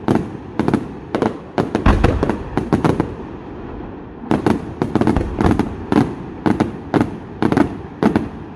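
Aerial firework shells bursting in a rapid run of sharp bangs, about two or three a second, with a short pause about three seconds in before the bangs resume.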